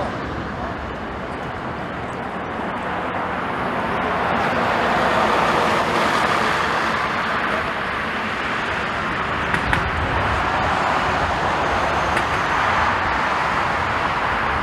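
Jet airliner engines running, a steady rush of noise that swells about four seconds in and holds.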